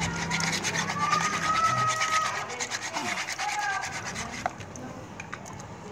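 Fine sandpaper rubbed quickly back and forth by hand over an etched brass plate, polishing the paint off the raised design so the bare brass shows. The scratchy strokes are steady at first and ease off, getting quieter, a little after halfway.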